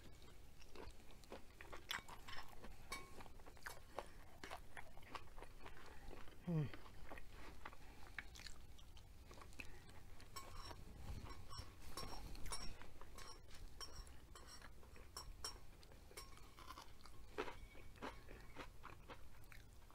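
Close-miked chewing and crunching of food, full of small wet mouth clicks, with a short falling "mm" hum about six seconds in.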